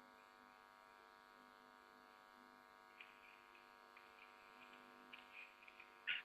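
Near silence with a steady electrical hum, and a few faint brief knocks or rustles in the second half.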